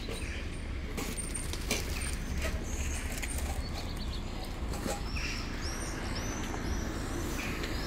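Small birds chirping: a run of short, high chirps about twice a second in the second half, over a steady low rumble.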